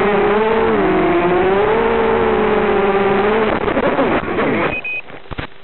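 Brushless motors and propellers of a ZMR-frame FPV quadcopter on a 3S battery whining at a steady, slightly wavering pitch. About three and a half seconds in the whine turns erratic and slides down as the quad goes into tall vegetation, and it stops about a second later. A short high beep and a few clicks follow.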